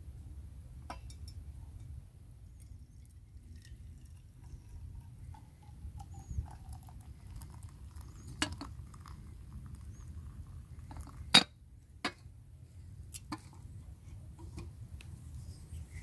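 Scattered light clinks and taps of a black enamel percolator coffee pot handled with a carved wooden lifting tool while coffee is poured into an enamel mug. The loudest are two sharp knocks a little under a second apart, past the middle.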